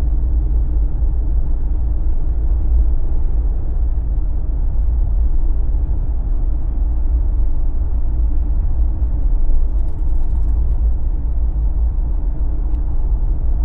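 Steady low road rumble and engine drone of a Jeep cruising on BFGoodrich KO3 all-terrain tyres.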